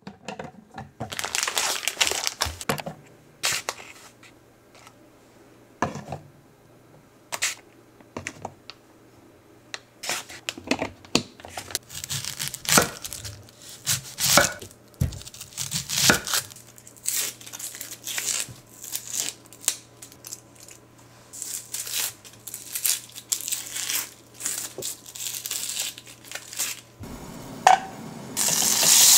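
Kitchen food-prep noises: a plastic bag crinkling and tearing, containers being handled, and knocks of a knife on a wooden cutting board. Near the end butter starts to sizzle as it melts in an enamel saucepan.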